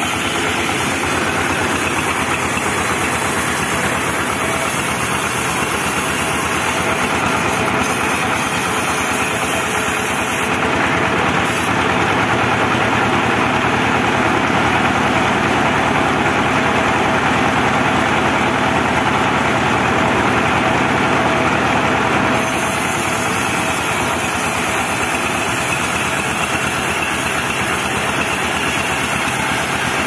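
Engine-driven band sawmill running steadily as its blade cuts lengthwise through a teak log. A brighter hiss rides on top of the steady machine noise from about ten seconds in until about twenty-two seconds in.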